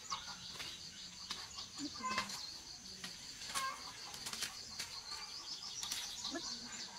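Cucumber leaves and vines rustling, with scattered small snaps and clicks, as cucumbers are picked from a bamboo trellis. A steady, high, slightly pulsing insect buzz runs underneath, with a few short chirps.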